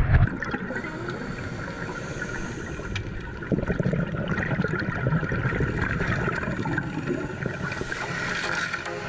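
Underwater water noise recorded during a scuba dive, with a louder bubbling rush starting about three and a half seconds in.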